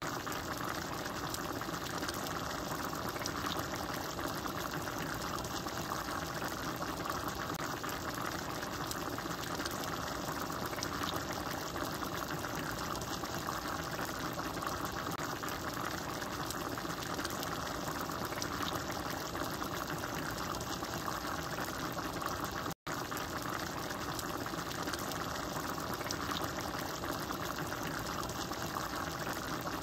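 Ground chicken and onions simmering in liquid in a pan on a gas stove, a steady cooking noise that breaks off for an instant about 23 seconds in.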